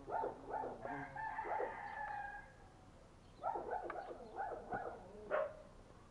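Bird calls: a run of short calls that ends in one long held call, then after a pause another run of short calls.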